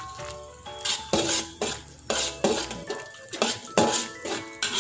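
A metal ladle stirring sauce in a metal wok, knocking and scraping against the pan in repeated clinks, about two or three a second.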